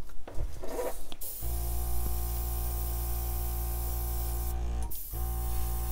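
Handleless hairdryer switched on and blowing on its cool setting: a steady motor hum under a rush of air. It cuts out briefly about five seconds in, then runs again.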